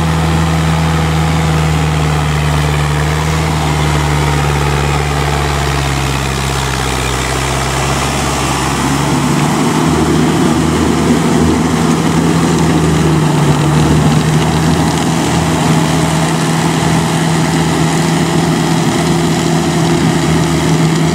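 Diesel tractor engine running steadily under load while pulling a rotary tiller through wet field soil. The sound shifts about nine seconds in, with less low rumble and a rougher mid-range.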